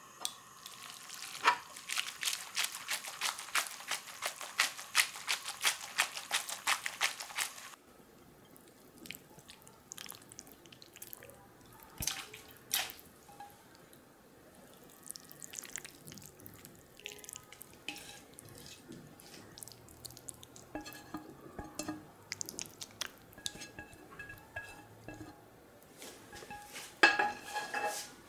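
Spaghetti in an egg-and-cheese sauce being worked with metal tongs in a hot frying pan: a dense, wet crackling for about eight seconds. Then sparser soft squelches and occasional clicks of metal as the pasta is moved and plated.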